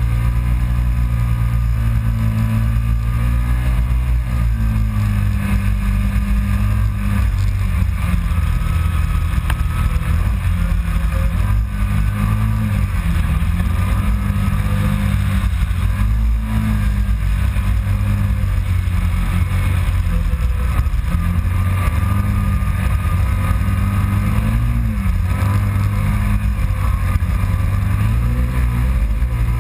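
Kawasaki Teryx side-by-side's V-twin engine heard from onboard, pulling under load through sand dunes, its pitch rising and falling with the throttle. A steady rush of wind noise runs over it.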